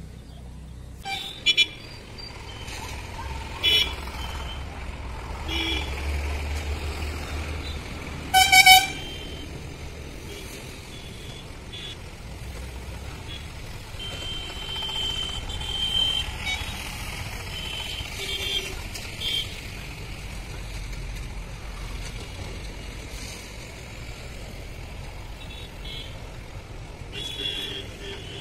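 Passing road traffic rumbling, with a vehicle horn giving a short toot about eight and a half seconds in, the loudest sound here. A few sharp clicks come near the start.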